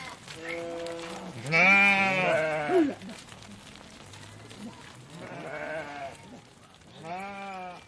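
Sheep in a passing flock bleating: a fainter bleat at the start, a loud long bleat about a second and a half in, then two fainter bleats near the end.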